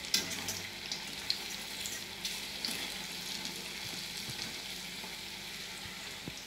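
Chilli bajji (battered green-chilli fritters) deep-frying in hot oil in a kadai: a steady sizzle, with a few light clinks of a wire skimmer turning them in the pan.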